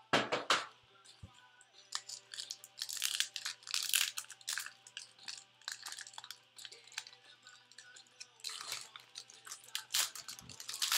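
Trading-card pack wrapper being torn open and crinkled by hand, in irregular bursts of crackling and tearing.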